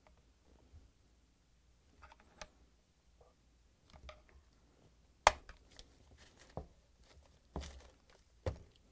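Flat-blade screwdriver prying the seal off a dishwasher circulation pump's plastic housing: faint scattered scrapes and small clicks, with a sharper click about five seconds in and a few more near the end.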